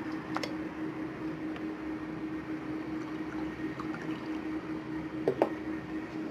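Runny slime mixture of white glue, water and detergent activator being stirred with a plastic spatula in a glass bowl: wet stirring, over a faint steady hum, with a light knock about half a second in and another a little after five seconds.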